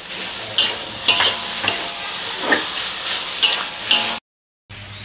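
Chilli sambal, meatballs and shredded chicken sizzling in a wok while a spatula stirs and scrapes through them in short strokes. The sound drops out to silence for a moment near the end.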